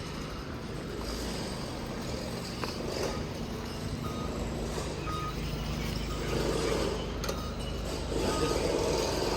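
Traffic noise with a vehicle engine running steadily and a few short, high electronic beeps.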